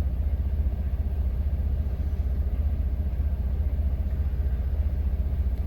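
Semi-truck engine idling with a steady low rumble.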